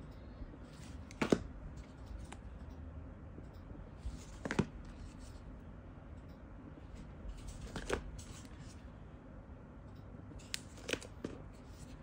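Handling of cardboard display boxes holding plastic-wrapped Zippo lighters: a handful of sharp taps and clicks a few seconds apart as the boxes are picked up and set down, with light rustling between.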